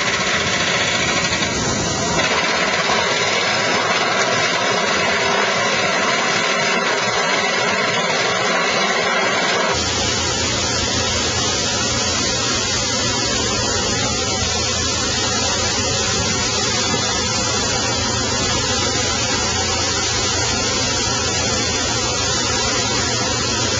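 Excavator engine running steadily, the sound changing abruptly about two seconds in and again near ten seconds.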